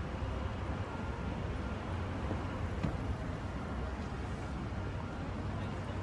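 City street ambience: a steady low rumble of road traffic, with a single short click about three seconds in.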